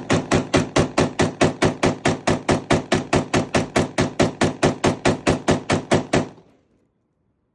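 Anderson AM-15 AR-15-style pistol fired in rapid semi-automatic fire: about thirty evenly spaced shots, some five a second, stopping abruptly about six seconds in.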